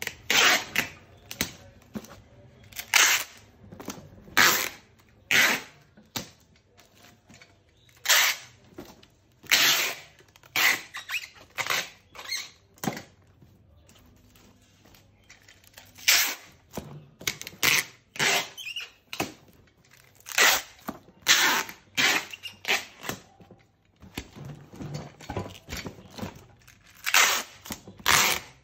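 Clear packing tape being pulled off a handheld tape gun in a long series of short rasping strips and pressed onto a cardboard box, with a pause about halfway.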